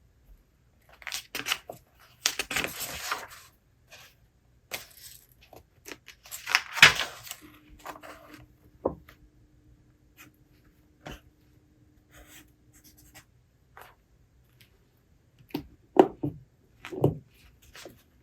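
Paper rustling as book pages are handled and turned, in several short rustling bursts with small clicks and taps between them.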